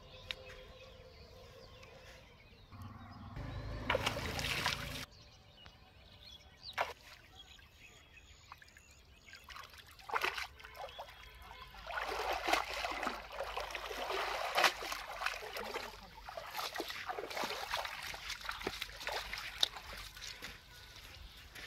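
Water splashing and dripping as a wet cast net is hauled in by its rope and lifted out of a shallow river. The sound is quiet and comes in irregular bursts, busiest through the second half.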